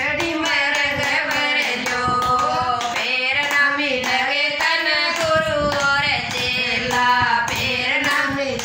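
Two women singing a Haryanvi folk song together while clapping their hands in time.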